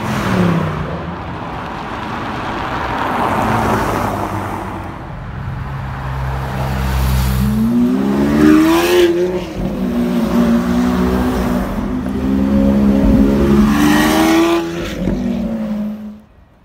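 Lamborghini Aventador V12 revving and accelerating away, its pitch climbing in two strong pulls with a steady spell between. A passing car's engine falls in pitch at the start, and the sound cuts off abruptly near the end.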